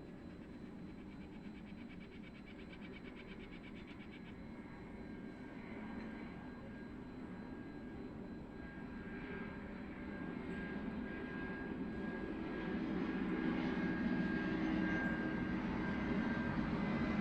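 A steady engine-like rumble that grows gradually louder, as of a motor vehicle or aircraft approaching.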